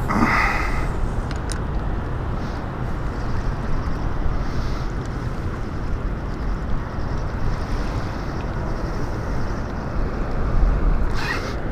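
Steady rushing noise, strongest in the low end: wind buffeting the microphone over fast tailwater flowing out below a dam.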